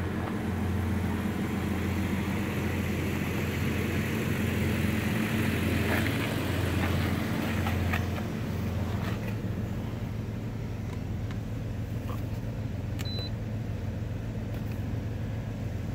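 Jeep Grand Cherokee engine idling steadily, with a short high beep near the end.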